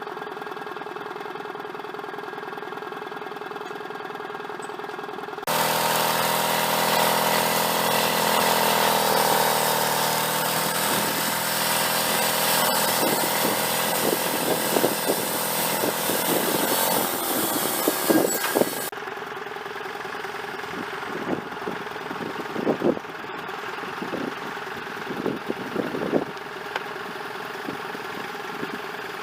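Sawmill engine running steadily. About five seconds in, the blade starts a cut: a loud, noisy whine lasts about thirteen seconds, and the engine pitch sags under the load before steadying. The cut stops abruptly, and the engine runs on with a few scattered knocks.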